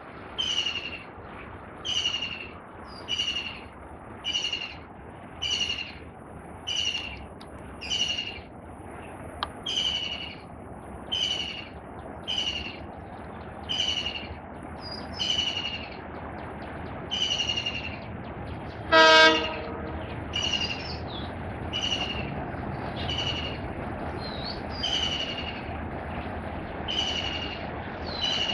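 A bird repeats a short, high, falling call over and over, about once a second. About two-thirds of the way in, an approaching diesel locomotive sounds one short, loud horn blast, and its low rumble grows from then on.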